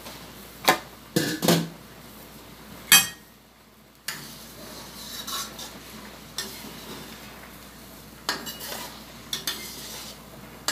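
Several sharp metal clanks of cookware in the first three seconds, then, after a brief near-silent gap, a metal spatula scraping and clinking against a stainless wok as chicken adobo bubbles at the boil.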